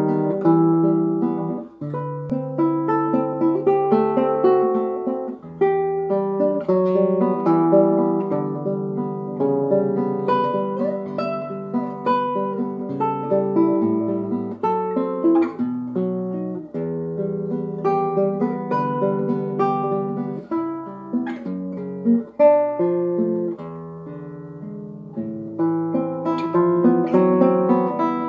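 Solo nylon-string classical guitar, fingerpicked, with arpeggiated chords ringing over held bass notes. It goes softer briefly a little past two-thirds of the way through.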